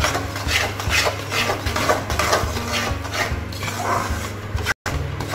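Long metal spatula scraping and stirring flour and semolina roasting in ghee in a steel kadhai, about two strokes a second against the pan.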